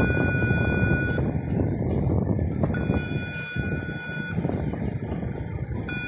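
Warning signal of a movable footbridge in operation: a steady high beep with overtones, sounding for about a second and a half and pausing about as long, three times, over a steady low rumble.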